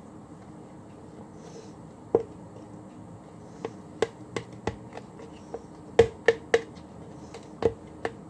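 A series of irregular sharp clicks and taps in a small room, beginning about two seconds in, with the loudest cluster of three or four about six seconds in.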